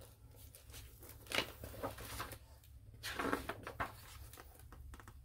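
Picture book being opened and its pages turned by hand: soft paper rustling, with two louder swishes about one and a half and three seconds in.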